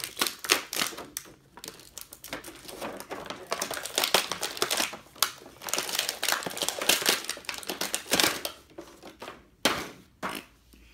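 Stiff clear plastic action-figure packaging crinkling and crackling in the hands, with irregular crackles that thin out near the end into a few sharp snaps.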